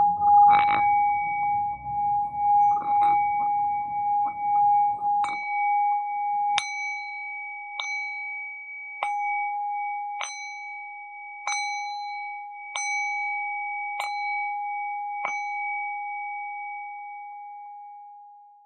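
A bell-like instrument ringing one steady high tone. For the first five seconds it is held over a rough, uneven rumbling noise, with a few light strikes. Then it is struck sharply eight times, about every 1.2 seconds, each strike ringing on, and the ring fades out near the end.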